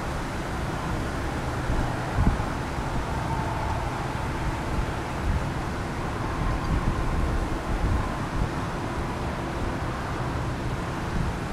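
Jet aircraft engines running steadily at an airport, with a faint whine, while wind buffets the microphone with an uneven low rumble.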